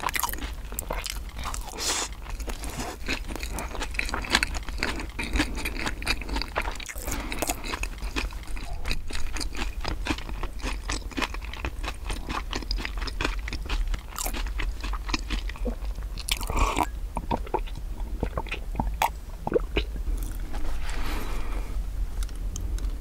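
Close-miked chewing of bread, with irregular crunching and wet mouth clicks. Partway through, the chewing pauses for swallowing sips of milk.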